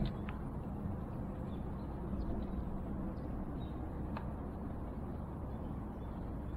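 A sharp knock at the very start and a couple of faint clicks from an angler handling rod, line and gear on a bass boat's deck while landing a small bass, over a steady low hum.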